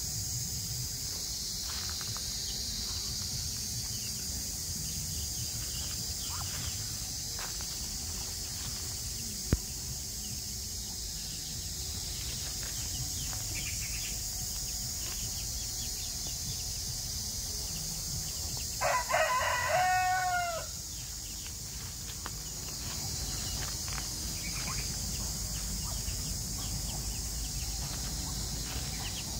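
A rooster crows once, about two-thirds of the way through, with a downward-bending call lasting about two seconds. A steady high-pitched hiss runs underneath, and there is a single sharp click about a third in.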